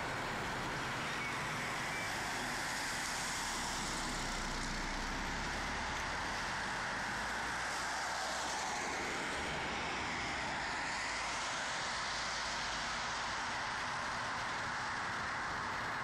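Steady traffic noise from cars passing along a city street.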